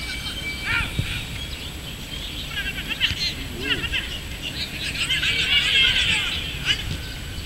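Birds chirping in quick, repeated calls over open-air background noise, busiest in the middle and toward the end.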